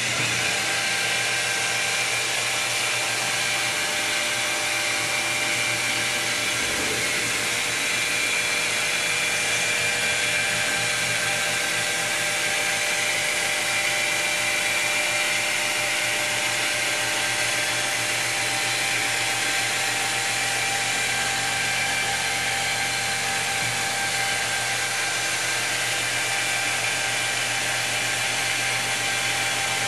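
Handheld electric wet stone polisher running steadily with a 220-grit copper-bond diamond pad pressed against a stone wall: a steady motor whine with the rushing sound of the spinning pad on the wet stone.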